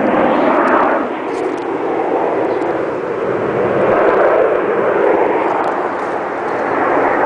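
Jet noise from CT-114 Tutor aerobatic jets flying overhead: a steady rushing roar that swells and eases a few times.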